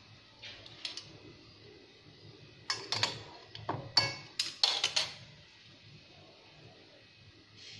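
Sharp metallic clinks and knocks of a metal pan on a gas stove's grate: a couple about half a second in, then an irregular cluster of louder ones for about two seconds near the middle.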